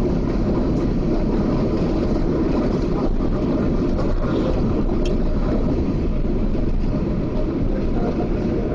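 Steady low rumble of a Boeing 777 airliner, heard inside the passenger cabin as it rolls along the ground after landing.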